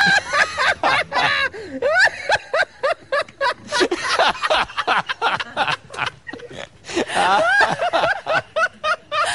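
People laughing hard, snickering and chuckling, with short vocal outbursts mixed in; the laughter swells about seven seconds in.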